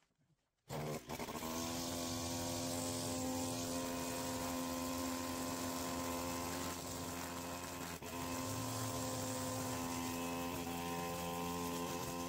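Two-stroke petrol brush cutter running steadily at high revs as its line head cuts long dry grass. It comes in abruptly about a second in, after near silence.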